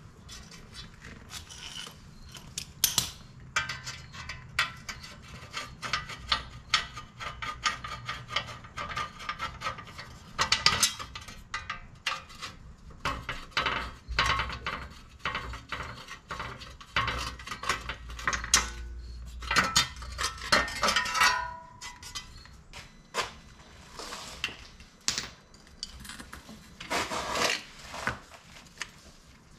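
Sheet-metal brake dust shield scraping, rattling and clanking as it is pried and worked off a front wheel hub, with metal tools clinking in between.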